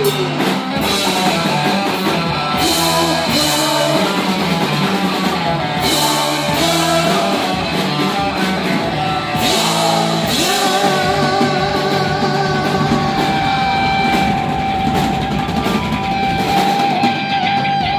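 Heavy metal band playing live: distorted electric guitar, bass and drum kit, with a long held high note through the second half.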